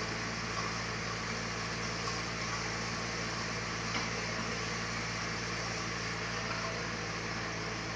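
Sawmill machinery running with a steady hum and an even rushing noise that stays the same throughout.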